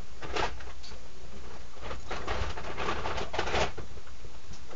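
Rustling and handling noise from things being moved about, a short burst about half a second in and a longer stretch of rustling from about two seconds in, over a steady low hum.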